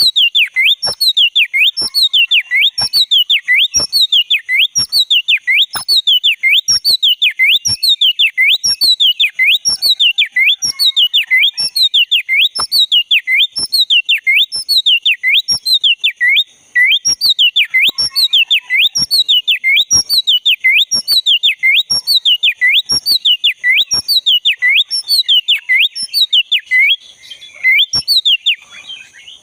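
Black-breasted Oriental magpie-robin (kacer dada hitam) calling vigorously: one sharp whistled note that dips and rises, repeated about twice a second with a click on each note, with a short break about halfway through and another near the end.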